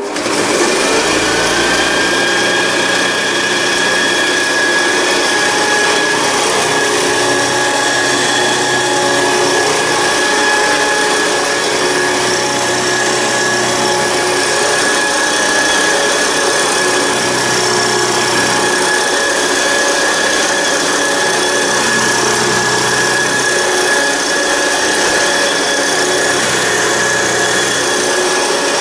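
1967 Hoover Senior 652A upright vacuum cleaner switched on: the motor starts suddenly and winds up over a second or two to a steady high whine, then runs on at full speed. The front of the machine vibrates, which the owner puts down to the brush bar and a belt that needs replacing.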